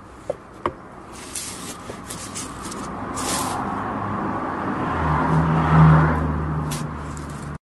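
A motor vehicle driving past: a rush of road noise that swells to a peak about six seconds in, with a low engine hum joining at about five seconds. A couple of light clicks near the start from a plastic ammo can being handled, and the sound cuts off suddenly near the end.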